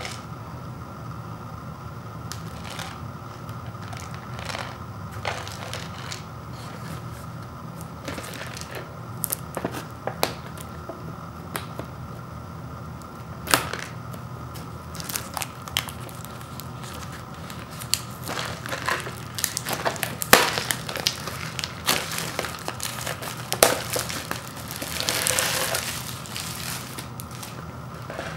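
Clear plastic shrink wrap being picked at, torn and peeled off an instant noodle bowl: scattered crinkles and crackles, sparse at first and busier in the second half, with a longer stretch of crinkling near the end.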